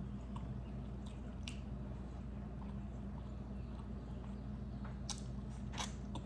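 A person chewing soft fufu and egusi soup, with wet mouth sounds and a few sharp wet smacks, the loudest near the end, over a steady low hum.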